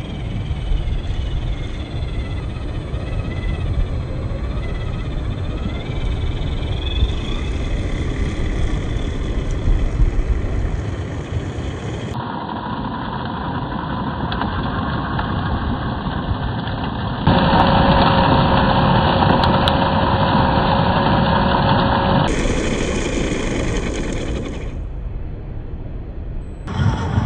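Small electric RC crawler driving over rough ground: motor and gear whine over a steady rumble of tyres on dirt and rock. In the middle stretch the audio is slowed to half speed, which lowers the whine to a steady hum.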